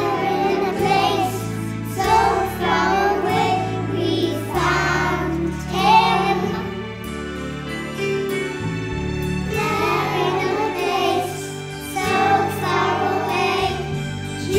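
A group of young children singing a nativity song together over an instrumental accompaniment, in phrases of a second or two.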